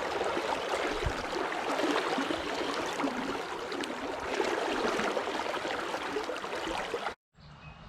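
Steady rush of river water, with scattered small splashes and ticks, cutting off abruptly about seven seconds in.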